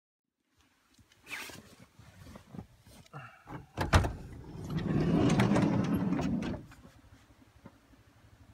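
Knocks and handling noises, a door slamming shut about four seconds in, then a small car engine starting up and settling into a low, steady idle.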